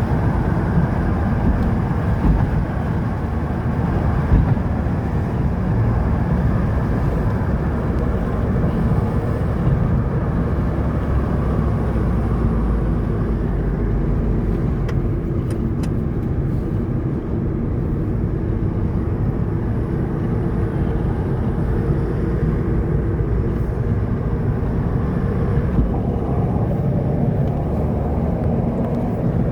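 Steady rumble of a car being driven on a road, engine and tyre noise holding even throughout.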